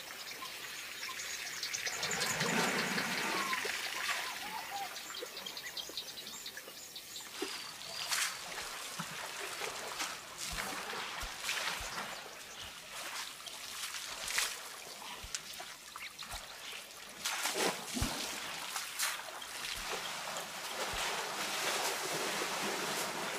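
Elephants splashing in a shallow waterhole: water trickling and sloshing, with a louder rush of water about two to four seconds in and scattered sharp splashes and drips throughout.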